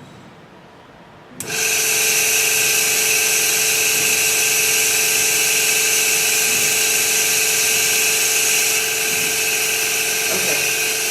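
Small motor in a facial treatment machine switching on abruptly about a second and a half in, after its button is held down, then running steadily with an even whine.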